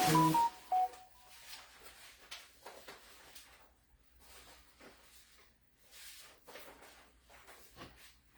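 A short electronic chime of a few beeps stepping down in pitch, over a brief rustle, in the first second. Then faint scattered clicks and handling rustles.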